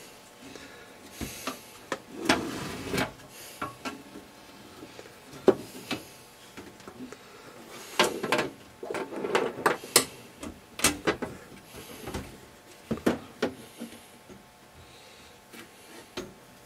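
Perforated metal bottom cover of a Swan 350 transceiver being worked loose and lifted off the chassis: irregular scrapes, rattles and clicks of sheet metal against metal, with the radio knocking lightly as it is shifted.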